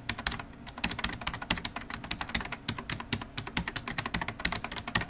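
Computer keyboard typing sound effect: rapid, irregular key clicks, several a second.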